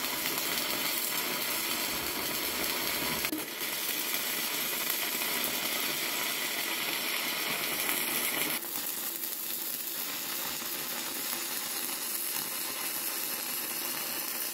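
Electric arc welding: the steady crackle and sizzle of the arc on steel. The level steps down abruptly about three and a half seconds in and again about eight and a half seconds in.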